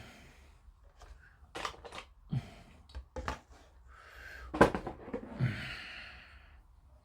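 Hobby sprue cutters snipping a clear plastic part off a model-kit sprue: a few sharp clicks and plastic knocks, the loudest about two-thirds of the way through, followed by a short rustle.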